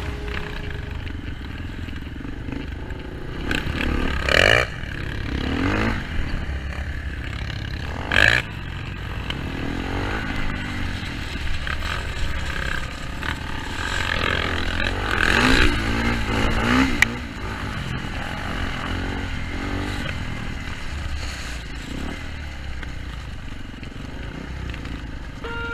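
Enduro motorcycle running, a steady low rumble with the engine swelling up several times.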